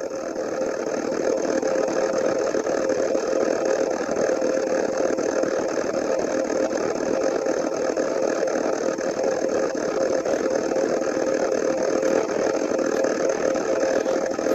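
A motor or engine running steadily: a continuous noisy drone with a steady hum through it.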